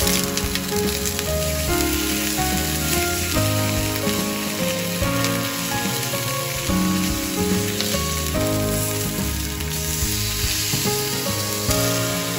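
Seasoned pork chops sizzling in hot oil in a non-stick frying pan, a steady crackling hiss as they are laid in and fry. Background music with a melody and bass line plays over it.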